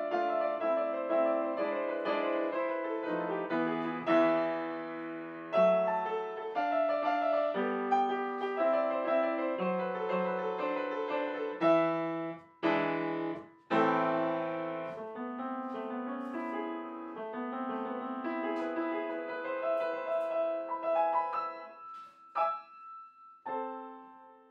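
Background piano music, a run of notes and chords with two brief breaks in the middle, thinning out to a few last notes near the end.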